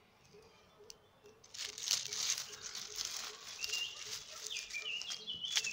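Hand scraping and rustling through dry leaves and soil while planting corn seeds, beginning about a second and a half in. A bird calls in short phrases a few times.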